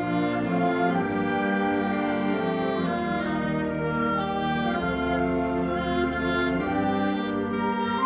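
Community concert band of woodwinds and brass playing a slow passage of long, sustained chords that shift every second or so.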